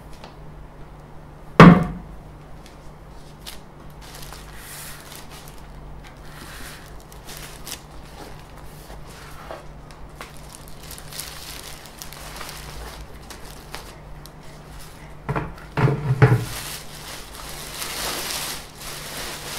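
Unpacking a 3D printer: one sharp thump about two seconds in, then soft plastic wrap crinkling. Near the end there is a quick cluster of knocks as the wrapped printer is set down on a metal table, followed by steady plastic wrap rustling as the wrap is pulled off.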